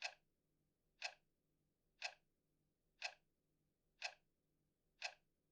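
Ticking like a clock: six short, sharp ticks evenly spaced one second apart over a very quiet background.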